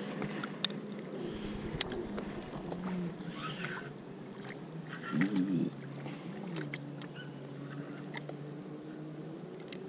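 Boat motor humming steadily, its pitch wavering and warbling more strongly for about half a second near the middle, with scattered light clicks of fishing tackle.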